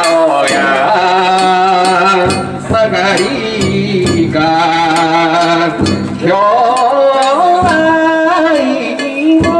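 A singer performing a danjiri hauling song (hikiuta) in long, wavering held notes, over instrumental accompaniment.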